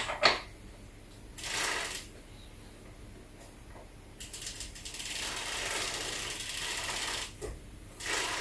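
Two sharp metal clicks as the right pedal and its washer ring are fitted to the crank arm of a Qicycle EF1 Plus folding e-bike. This is followed by a brief rustle and then a few seconds of rough metal-on-metal rubbing as the pedal spindle is screwed into the crank.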